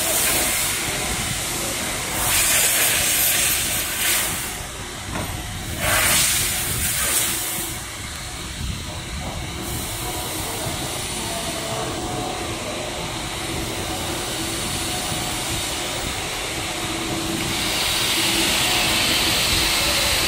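Factory workshop noise: a steady mechanical rumble with loud hissing bursts about two seconds in and again about six seconds in. A steadier hiss comes in near the end.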